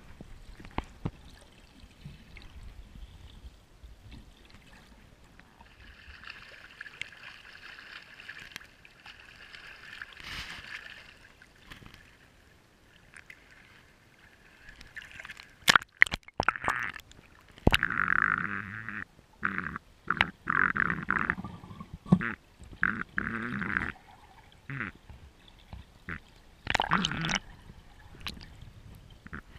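Water sloshing and splashing against an action camera bobbing at the water surface, in irregular loud bursts from about halfway through, after a stretch of faint muffled underwater noise.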